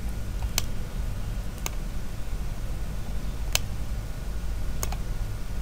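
Four sharp, separate computer mouse clicks a second or more apart, over a steady low electrical hum.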